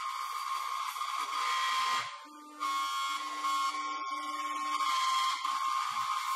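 CNC router spindle running with a steady high-pitched whine while its bit cuts into a wood board, with a noisy cutting hiss over it. The sound dips briefly about two seconds in, and a lower hum comes and goes through the middle.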